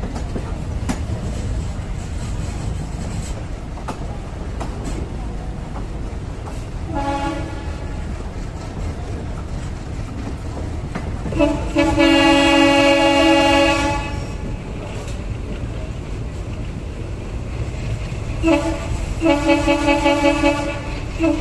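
A WDM3A diesel locomotive's horn sounding over the steady noise of the train running, heard from an open coach door. There is a short blast about seven seconds in and a long blast of about two and a half seconds around twelve seconds. Near the end comes a short blast and then a rapid string of quick toots, about four or five a second.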